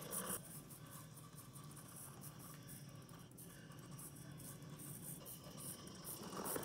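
Faint, uneven scratchy whir of a 1/64-scale micro RC car's tiny drive motor and small wheels running on the road mat.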